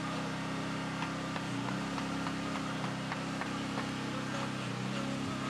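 A machine's steady low hum, shifting in pitch a couple of times, with scattered light clicks over it.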